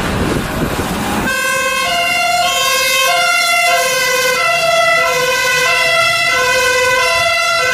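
German fire engine's two-tone siren sounding, two pitches alternating evenly about once a second each, starting about a second in after a rushing noise.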